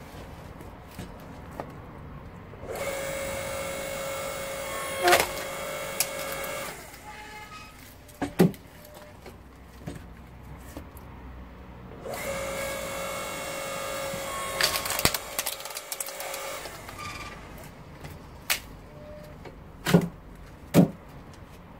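AL-KO KHS 5204 electric hydraulic log splitter running twice for about four seconds each time, a steady motor and pump hum as the ram pushes logs through the wedge, with sharp cracks of the wood splitting. Near the end come two loud knocks of split wood being handled and tossed down.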